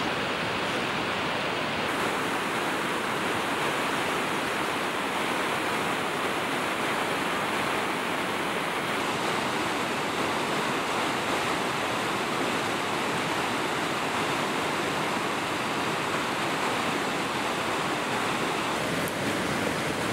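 Rushing mountain river: a steady, even rush of white water over rocks.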